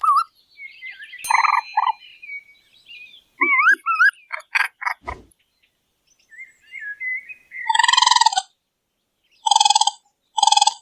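Raccoon calls: wavering, trilling chirps and short chittering calls, then a louder harsh call about three-quarters of the way through, followed by two shorter harsh calls.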